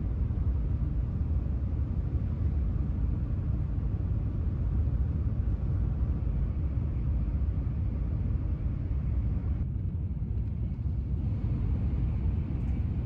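Steady low rumble of carriage noise inside a 285 series Sunrise Izumo sleeper train.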